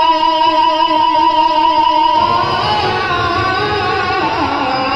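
Devotional song with a sung voice: one long held note for about two seconds, then the melody moves on through changing notes.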